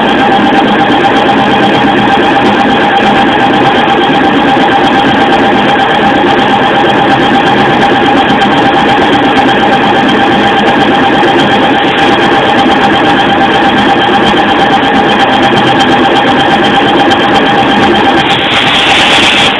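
Nardine CNC lathe running with a steady machine whine and noise while machining a shaft, and a brief hiss about a second before the end.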